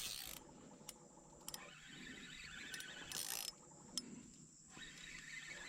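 Small spinning fishing reel being cranked in a few short spells, a faint gear whirr with light clicking.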